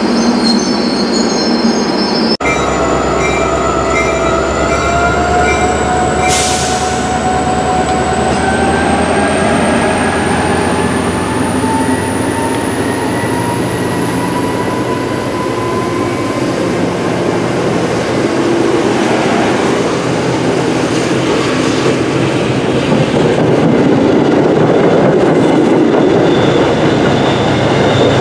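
CapeFLYER passenger train rolling past the platform and gathering speed, a steady rumble of wheels with high thin whining tones that climb slowly in pitch. The sound changes abruptly a couple of seconds in.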